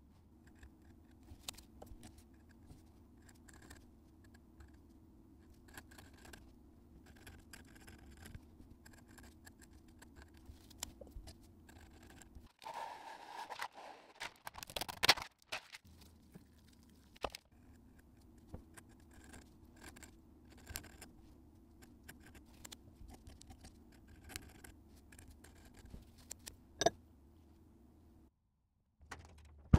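Faint steady hum with scattered small clicks and scratches of handling. About halfway through comes a louder stretch of parchment paper rustling and crinkling as it is laid over a metal baking sheet, ending in a sharp click.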